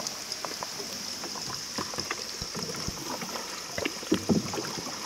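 Small tour boat on an underground river: scattered water drips, small splashes and knocks, with a couple of louder knocks or splashes about four seconds in, over a steady high hiss.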